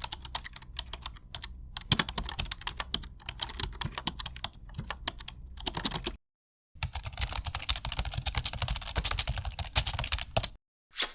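Typing on a computer keyboard: a fast, irregular run of key clicks that stops about six seconds in, then a second stretch of typing after a short pause.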